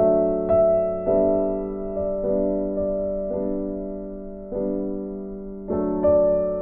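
Background music: slow piano chords, each struck and left to fade before the next.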